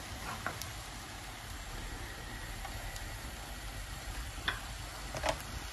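Rice in the pot sizzling and crackling faintly over the gas flame, with a few light clicks.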